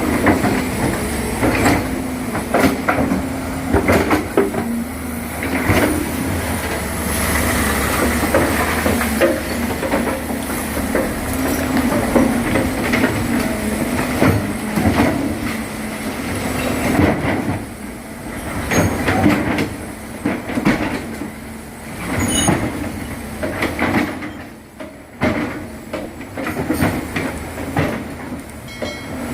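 Excavator's diesel engine running steadily under frequent metallic clanks and knocks from the machine at work, briefly quieter near the end.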